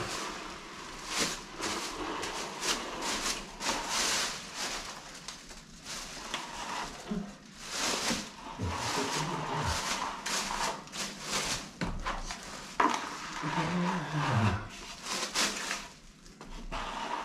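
Plastic-blade speed skim scraping across wet plaster in repeated sweeping strokes, about one a second, flattening a freshly applied skim coat.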